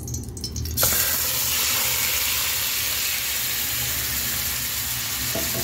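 Marinated chicken pieces dropped into hot oil in a frying pan: a sudden sizzle starts about a second in and keeps going steadily.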